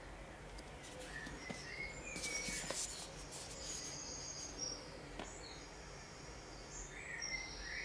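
Faint birds chirping in the background: short, high calls, some held briefly, some sliding. A few brief rustles come about two to three seconds in.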